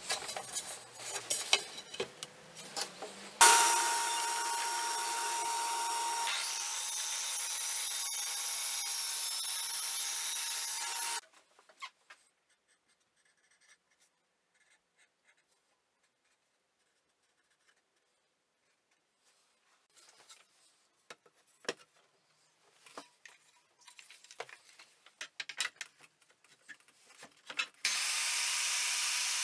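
Aldi Workzone PL55 track saw starting with a sharp onset and running through 18 mm birch plywood for about eight seconds with a steady whine, then stopping. Light handling clicks follow after a quiet stretch, and near the end an Evolution R185CCSX+ track saw starts up on its track.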